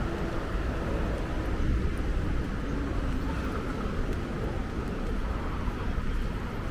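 Steady low rumble of a road vehicle in motion, with road noise.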